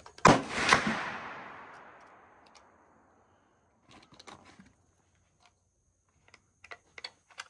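A gunshot just after the start, with a second crack about half a second later and a long echo dying away over about two seconds. Later come a few light clicks and taps as shotgun shells are handled for loading.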